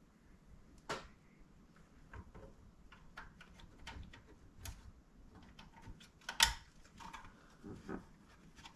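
Scattered clicks and light taps of plastic wiring connectors being handled and plugged into the back of a car stereo head unit. The loudest is a sharp click about six and a half seconds in.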